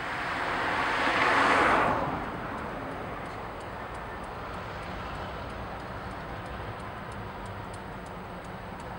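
A car passes close by: tyre and engine noise swells, peaks and drops away about two seconds in. After that comes a steady low traffic rumble, with faint high ticking about two times a second.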